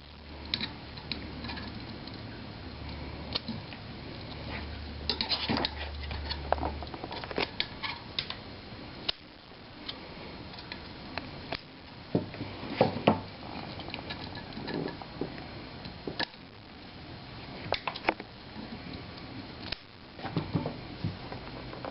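Small scissors snipping off the frayed end of fan-cable sleeving: irregular short snips and clicks, with handling noise in between.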